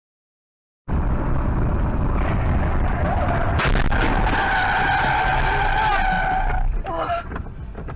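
Car skidding out of control in a crash: loud road and tyre noise with a heavy rumble, a sharp knock about three seconds in, then a steady high tyre squeal for a few seconds before the sound breaks up.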